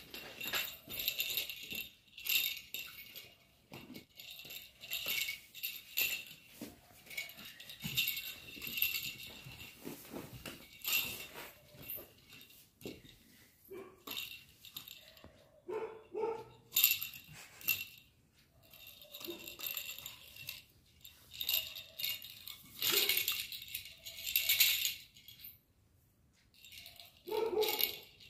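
Plastic lattice rattle toy rattling in irregular bursts as a Labrador puppy chews and shakes it, with a couple of short puppy barks near the end.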